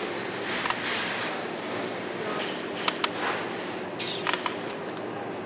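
Coins clinking as they are picked out of a wallet to pay at a checkout: a handful of short, sharp clicks, two close together about three seconds in, over a steady background hum.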